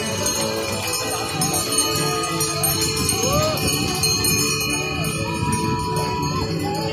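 Many small harness bells jingling on passing carriage horses, over music playing.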